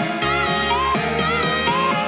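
Background music: a guitar tune with notes that slide up in pitch, over a steady bass line.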